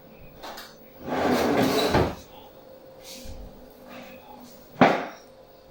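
Handling noises: a noisy rustle lasting about a second near the start, small scattered sounds, then one sharp knock near the end.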